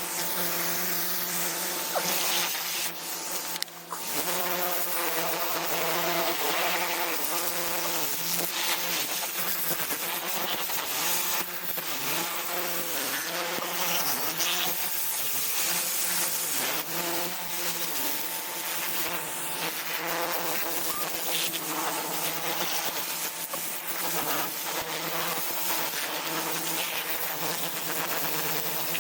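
Pressure washer running: a steady buzzing drone from its pump motor, its pitch wavering, over the hiss of the water spray.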